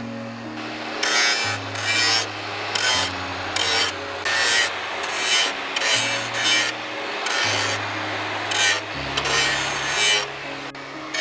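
Hand file or rasp scraping in repeated strokes, about two a second, with background music playing under it.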